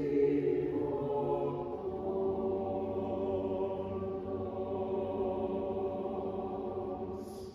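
Mixed church choir singing slow, sustained chords in a chant-like style. The lowest voices drop out about two seconds in, and the final chord dies away near the end.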